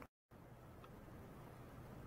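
Near silence: faint steady hiss of room tone, cutting out completely for a moment near the start.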